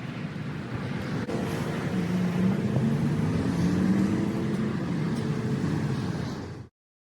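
Two-stroke chainsaw running and revving, its pitch wavering as it is worked, louder in the middle; the sound cuts off suddenly near the end.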